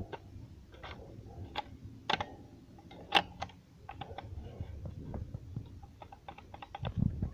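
Irregular light clicks and taps, with one sharper click about three seconds in, a quick run of clicks late on, and a low thump near the end.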